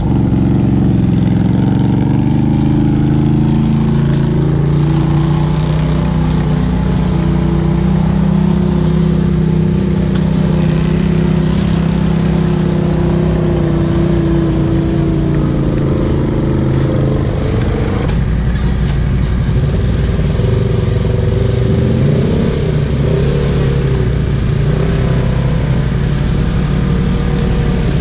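Honda ATV engine running as the quad is ridden along a trail, its pitch rising and falling with the throttle. The engine note eases off and changes about two-thirds of the way through.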